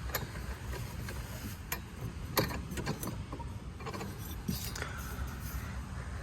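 Irregular metallic clinks and rattles of hand tools and loosened hardware while riding-mower deck fasteners are taken off, over a low rumble.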